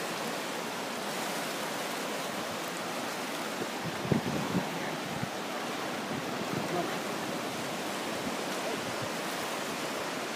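Fast glacial river running over rapids: a steady rush of water. A few brief low bumps come about four seconds in.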